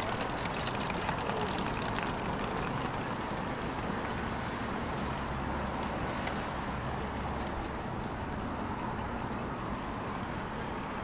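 City street traffic noise: a steady wash of passing cars, with a deeper vehicle rumble swelling for a few seconds midway. A few sharp clicks come in the first second or so.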